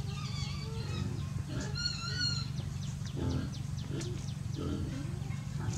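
A few short, wavering high animal calls, the clearest about two seconds in, over a steady low hum.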